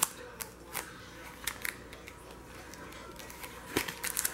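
Scattered light clicks and crinkles of sealed soap packaging being handled, a few at a time, with a small cluster near the end.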